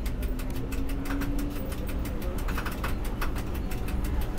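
Tram rolling along street track, heard from inside the driver's cab: a steady low rumble with rapid clicking and rattling, and a faint steady tone in the first second and a half.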